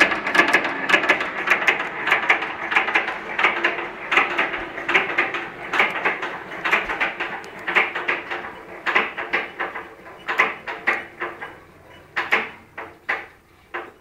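Slow-speed Listeroid diesel engine running down after being shut off. Its regular beats slow and spread out, grow weaker, and die away to a few last thumps near the end as the engine and its heavy flywheels coast to a stop.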